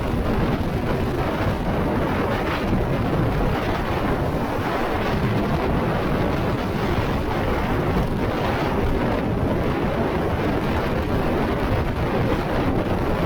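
Very strong mountain wind buffeting the microphone: a loud, continuous, low rumble and roar that never lets up.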